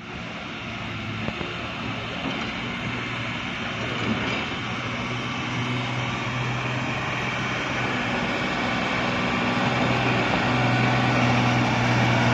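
Tata tipper truck's diesel engine running at low speed as the truck crawls closer over rough ground, its hum growing steadily louder.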